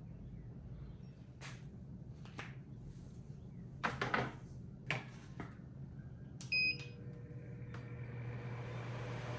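A few sharp clicks and knocks, then a short electronic beep about six and a half seconds in from the Powertec AF4000 air filtration unit's control board. The unit's fan then starts and runs, its steady rushing noise growing louder.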